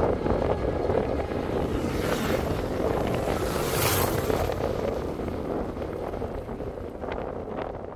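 Wind buffeting an outdoor phone microphone: a steady, rough rumble with brief hissing swells about two and four seconds in, fading out gradually near the end.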